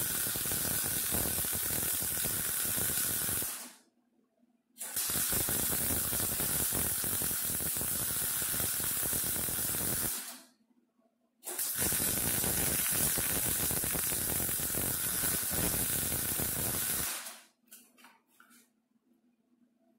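MIG welder arc crackling steadily as it lays weld on the sheet steel of a 1929 Ford Model A door, in three runs that each stop abruptly: short pauses about 4 and 11 seconds in, and it stops for good about 17 seconds in.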